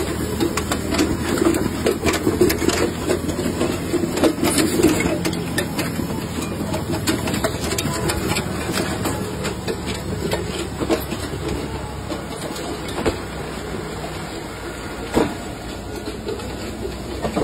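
Radish harvesting and bunching machine running in the field: steady mechanical clatter of its belt conveyors and drive, with scattered sharp clicks and knocks.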